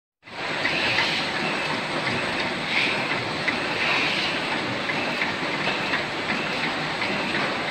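Sticker die-cutting machine running with its flywheel spinning: steady mechanical noise with a beat that repeats about once every 0.7 seconds as the machine cycles.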